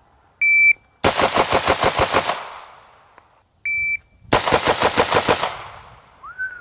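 Shot-timer beep, then a rapid string of about eight 5.56 mm shots from an LWRC M6IC-DI direct-impingement AR-15 in just over a second; a second timer beep and another fast string of about eight shots follow.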